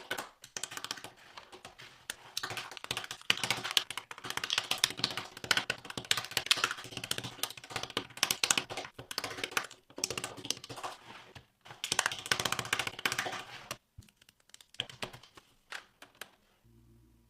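Lego-built typewriter being typed on: rapid, dense clattering of plastic keys and mechanism, thinning to a few scattered clicks about fourteen seconds in.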